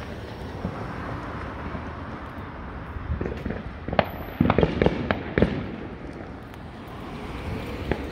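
Fireworks going off: a few scattered bangs, then a quick run of sharp pops and crackles about four to five and a half seconds in.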